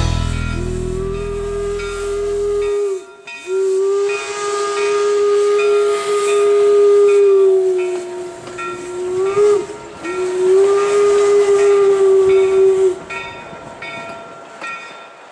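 Steam locomotive whistle sounding four long blasts, one slightly bending in pitch, over hissing steam. A sustained music chord ends under the first blast, and the hiss fades away near the end.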